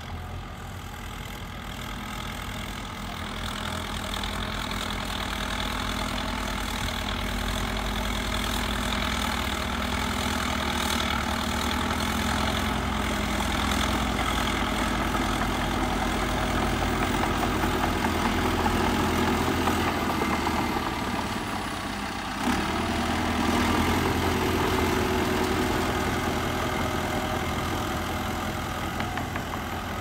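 Caterpillar D3 bulldozer's diesel engine running steadily as the dozer pushes dirt with its blade, growing louder as it comes closer. About two-thirds of the way through the engine sound briefly drops, then picks up again.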